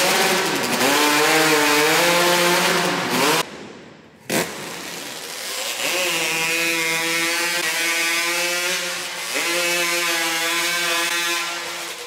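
Hot saw, a modified racing chainsaw with a two-stroke engine, running flat out, its pitch dipping as it pulls down through the log. The sound cuts off sharply about three and a half seconds in, a short click follows, and a second run starts about two seconds later, dipping again under load before fading near the end.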